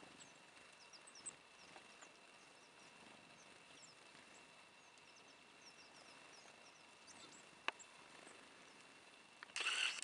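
Small songbirds calling, many short, high chirps scattered throughout, over faint outdoor hiss. Shortly before the end, a sudden loud rustling from the camera being handled takes over.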